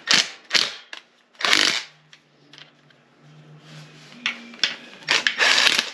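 Hand wrench or ratchet working steel bolts into the NP205 transfer case's PTO cover: several short rasping bursts of tool noise on metal, a couple near the start, one about a second and a half in, and a cluster near the end. The bolts bind as they tighten, which the mechanic puts down to their being too long.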